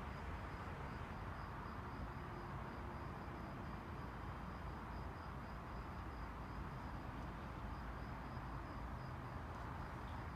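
A cricket chirping steadily, about four high chirps a second, over faint steady background noise.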